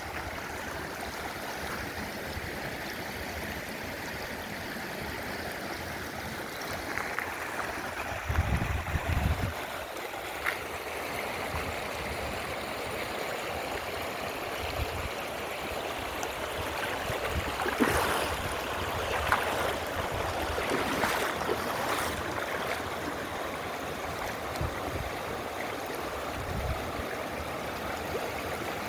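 River water flowing steadily, a constant rush. A few low thumps come about nine seconds in, and several sharp clicks around eighteen to twenty-two seconds in.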